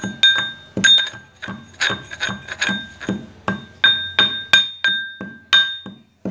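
Metal pestle pounding almonds in a metal mortar, about two to three strikes a second, each strike ringing with a clear metallic tone. The almonds are being crushed to powder.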